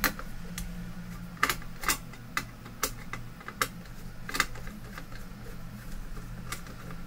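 Irregular sharp clicks and taps of small metal and plastic parts being handled as the blower fan bracket is worked loose from the monitor mainboard's metal shield, over a steady low hum.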